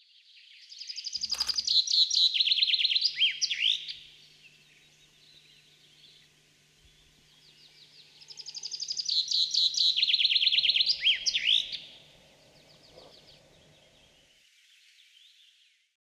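A small songbird singing the same brisk, high-pitched song twice, each time a fast run of repeated notes stepping down in pitch and ending in a short flourish. A sharp click sounds just over a second in.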